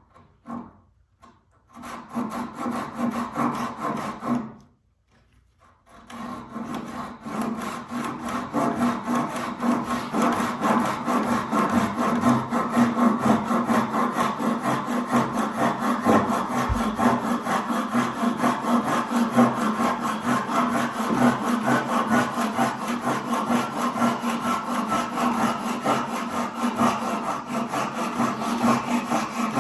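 Hand saw cutting wood with quick, even back-and-forth strokes. It starts about two seconds in, stops briefly, then saws on steadily.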